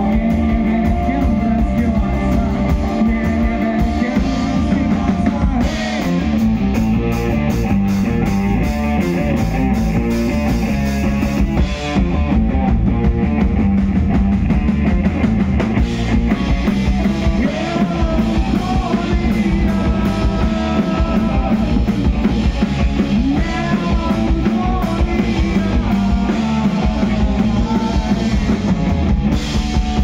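Live rock trio playing: electric guitar, electric bass and a drum kit, with busy cymbals over a steady beat.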